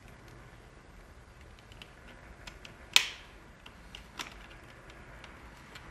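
Small plastic clicks and taps from a paddle shifter being fitted onto the back of a steering wheel, with one sharp snap about three seconds in and a lighter click about a second later.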